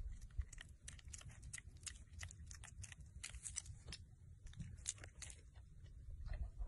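A piglet chewing and smacking its mouth: faint, irregular crunchy clicks over a low rumble.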